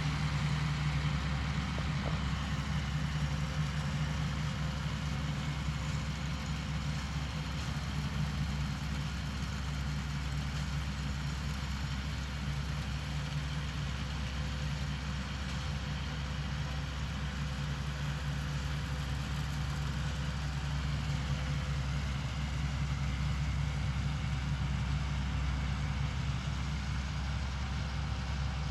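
Valtra 6300 tractor's diesel engine running at a steady pitch while driving a Welger RP12 round baler.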